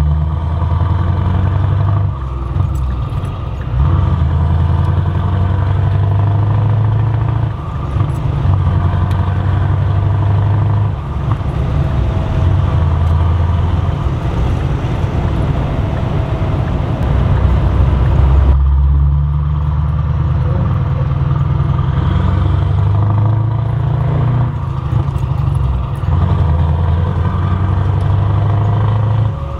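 Scania R500 truck's V8 diesel engine under way with an open, unsilenced exhaust, heard from inside the cab. The deep engine note dips briefly and shifts pitch in steps a few times.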